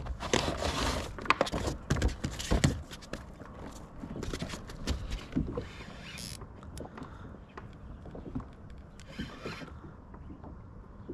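Irregular clicks and knocks from a spinning rod and reel being worked to bring a hooked catfish up beside a kayak, busiest in the first three seconds, then sparser and softer.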